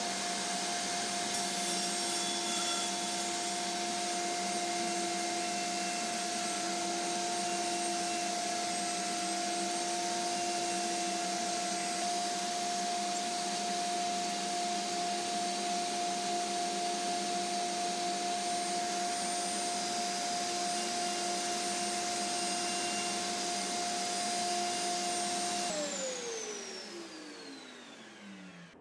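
Table-mounted wood router running at full speed while a disc is turned over its bit to mill a 3 mm deep circular recess. About 26 seconds in it is switched off and its pitch falls as it spins down.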